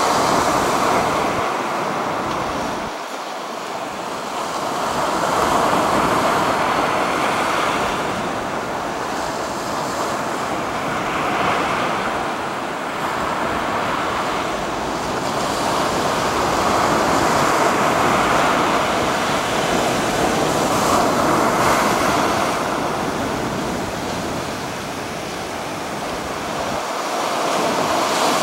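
Ocean surf breaking on a sandy beach and against low shoreline rocks: a continuous rushing wash that swells and eases every few seconds as each wave comes in.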